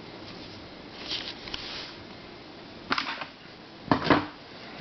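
Plastic puzzles being handled and put down on a shelf: a few short clicks and knocks, the loudest about three and four seconds in.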